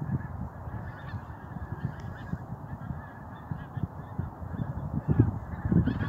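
A large flock of geese honking in flight, a dense chorus of overlapping calls that eases in the middle and swells again near the end.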